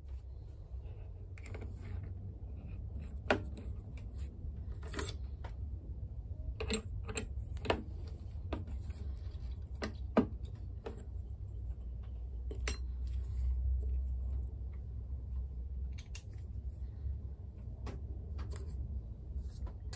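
Small metal parts clicking and clinking as they are handled and set down on a wooden workbench: a dozen or so sharp, scattered clicks over a low steady hum.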